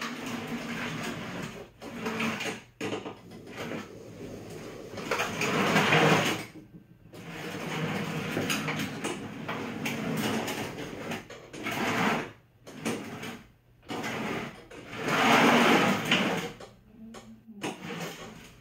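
Electric motors of a remote-controlled EGO cordless snow blower whirring in several runs with short stops between them, the loudest about six seconds in and again about fifteen seconds in.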